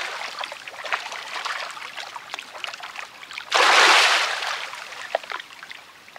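Piraputanga fish splashing and thrashing at the river surface as they go for fruit held just above the water, with small splashes throughout and one loud splash about three and a half seconds in.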